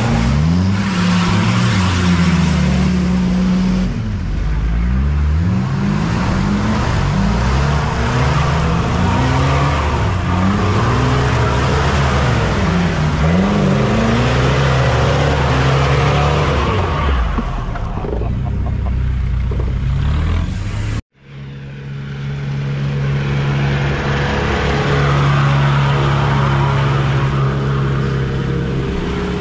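Off-road 4x4 engines revving up and down as they drive through mud, the pitch rising and falling again and again. After a sudden short cut about two-thirds of the way through, an engine holds steady high revs.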